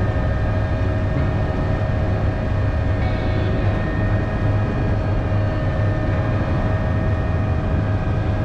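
Cockpit noise of an AgustaWestland AW119 Koala helicopter in flight: its single turboshaft engine and rotor system running steadily, a low hum under a constant turbine and gearbox whine.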